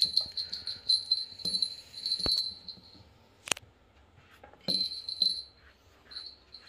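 Small jingle bell on a cat's fishing-rod teaser toy jingling in quick shakes as the toy is jerked and batted about, with two sharp knocks midway.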